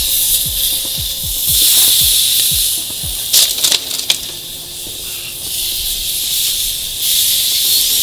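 Ribeye steak sizzling as it sears on hot grill grates over charcoal, a steady hiss that starts as the meat is laid down. A few sharp clicks come a little over three seconds in.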